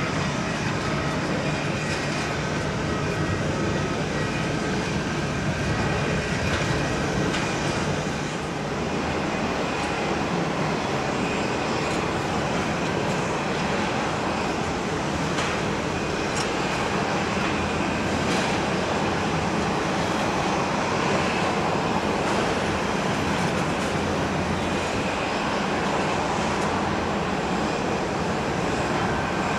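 Steady jet engine noise of airliners on the runway, a broad even rumble and hiss with a faint high whine in the first several seconds. The level dips briefly about eight seconds in.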